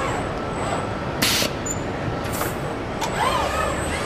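Car assembly line machinery in a steady hum of noise. About three seconds in, industrial robot motors whine, rising and then falling in pitch. Two short hisses come in the middle, about a second apart.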